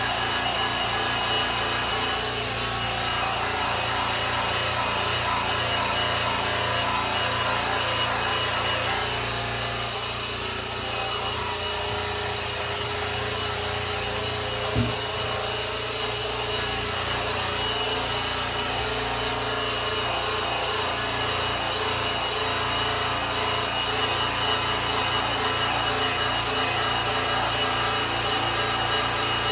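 Electric polisher running steadily as it buffs the finish of a grand piano, with one short knock about halfway through.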